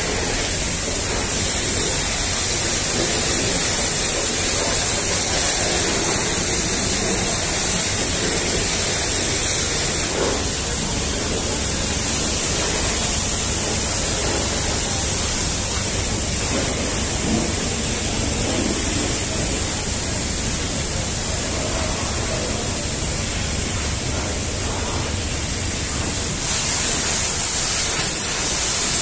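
Steady hiss of a pressure washer spraying water. It grows louder near the end as the jet plays on the truck cab.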